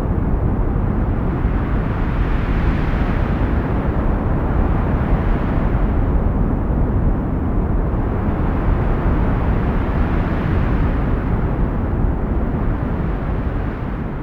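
Heavy wind blowing as a deep, steady rush, swelling into stronger gusts about three seconds in and again around ten seconds in.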